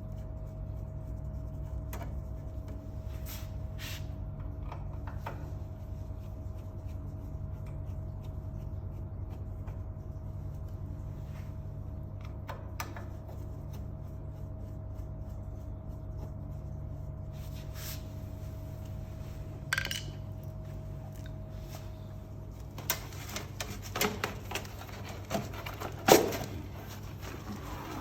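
A steady machine hum with a faint high whine, with an occasional sharp click, while parts of a noodle-making machine's conveyor are worked on. The whine stops about 23 seconds in, followed by a run of knocks and clatters as parts are handled.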